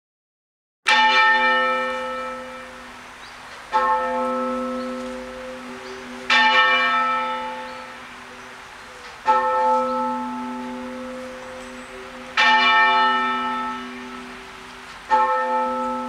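A single church tower bell tolling half-muffled, a funeral knell: six strokes about three seconds apart, each left to ring and fade, alternating a clear open stroke with a duller muffled one. The first stroke comes about a second in.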